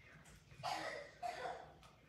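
A person coughing twice, short and soft, about half a second in and again a moment later.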